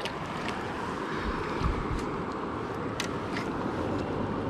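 Steady rushing of river current around rocks, with wind buffeting the microphone around a second and a half in. A few short faint splashes come from a hooked catfish thrashing at the surface.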